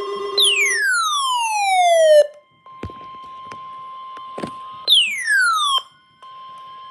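Weather alert radios sounding for a tornado warning: two loud siren-like sweeps that fall steeply in pitch, each lasting one to two seconds, over a quieter steady tone of about 1 kHz, the broadcast warning alarm tone. A couple of sharp clicks fall between the sweeps.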